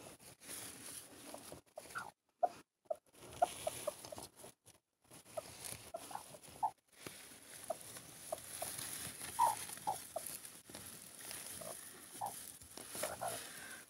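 Broody hens on a straw nest giving soft, short clucks scattered through, with straw rustling as they shift about and pull the eggs under themselves.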